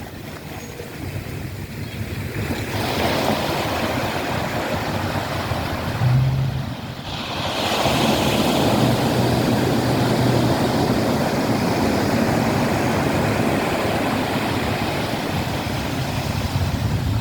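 Sea waves washing onto the shore: a surge swells about three seconds in, ebbs briefly, and a louder one rolls in about halfway through.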